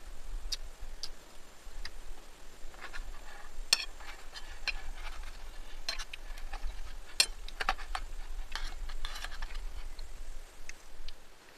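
Irregular light clicks and taps, with two sharper clicks about four and seven seconds in, over a steady low rumble; the sound drops away just before the end.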